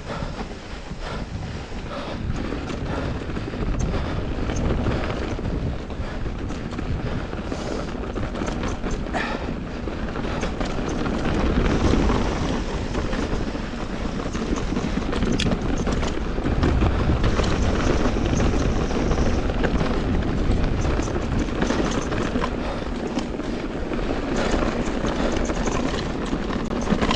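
Wind rushing over a GoPro's microphone as a mountain bike descends a loose, rocky dirt trail, with tyres crunching over loose dirt and stones and the bike knocking and rattling now and then.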